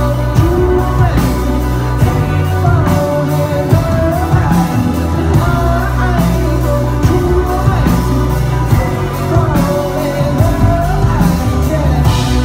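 Live indie-rock band playing loud: a male lead vocal over electric guitar, bass and steady drums, recorded from within the crowd.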